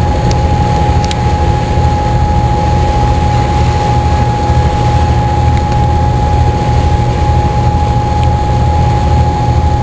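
Ferry's engines running steadily: a low rumble with a steady whine on top.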